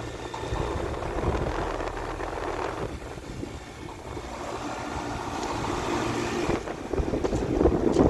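Wind buffeting the microphone, rising and falling in gusts and strongest near the end, over a steady low hum.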